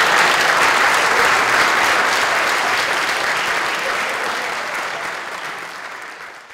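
Audience applauding in a lecture hall, a dense steady clapping that tapers off and fades out near the end.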